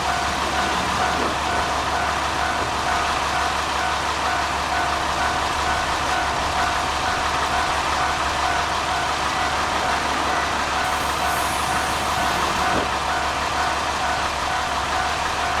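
Japanese level-crossing warning bell ringing continuously with a steady repeating electronic tone, over the continuous rumble of a diesel railcar running through the crossing.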